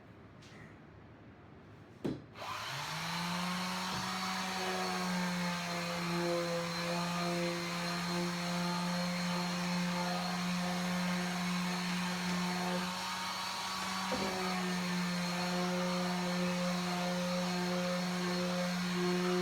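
Electric sander switched on with a click about two seconds in, spinning up and then running steadily with a hum and a hiss. There is a brief knock about two-thirds of the way through.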